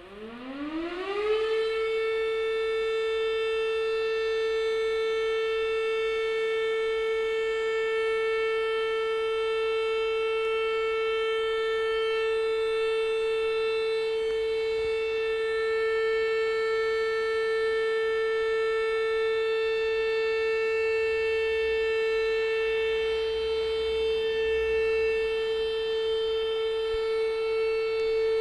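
Fire station's alarm siren winding up in pitch over the first second and a half, then holding one steady, loud tone. It is the alarm that calls volunteer firefighters out.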